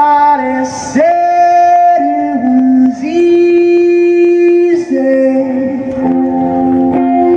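Music with singing: a voice holding long notes, each about one to two seconds, that step from pitch to pitch.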